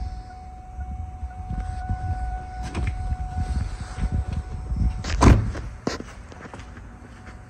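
A car door swung shut with one loud thud about five seconds in, then a smaller knock, over low rumble and light knocks from the phone being carried. A faint steady high tone runs under the first two-thirds and stops just before the thud.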